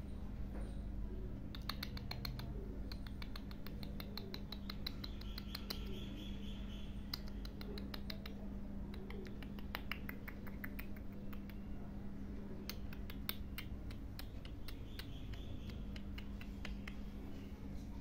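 Alexandrine parakeet making quiet clicking sounds, in runs of quick ticks, with a couple of faint high squeaks, over a steady low hum.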